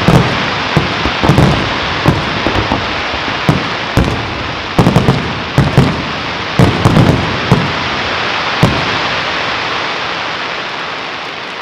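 Aerial fireworks display: a rapid series of shell bursts, with loud bangs over a continuous hiss. The bangs come thick at first, then thin out, and the sound fades toward the end.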